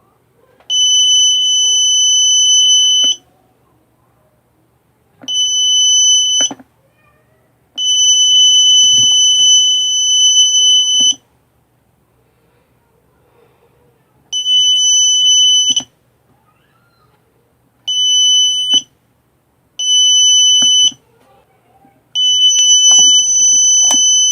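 Buzzer of a homemade mobile-phone security alarm sounding one steady, loud, high-pitched tone in seven bursts of uneven length, from under a second to about three and a half seconds, with short pauses between them. Small clicks mark where the bursts start and stop.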